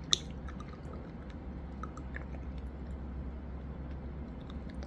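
Soju poured from a green glass bottle into a tall glass of ice: a quiet trickle of liquid with faint crackling ticks from the ice, and one sharp click just after the start.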